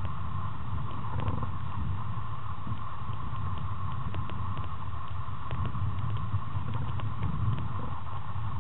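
Steady low rumbling water noise picked up by a submerged camera, with a constant mid-pitched hum and scattered faint clicks.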